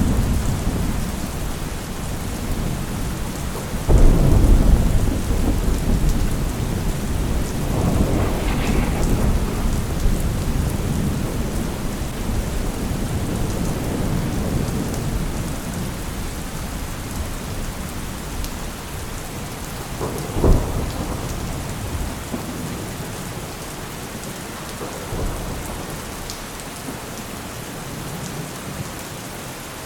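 Steady rain with rolling thunder. A loud thunderclap breaks about four seconds in and rumbles on for several seconds, another sharp crack comes about two-thirds of the way through, and the rumbling slowly dies down toward the end.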